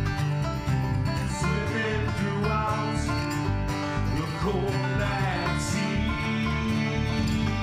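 Background music: an upbeat bluegrass-style tune on plucked string instruments, with a steady beat.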